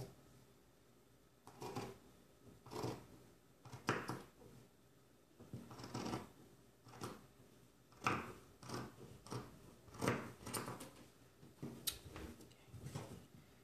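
Scissors cutting through the fabric of a pair of men's boxer briefs: about a dozen separate snips, roughly one a second, coming closer together in the second half.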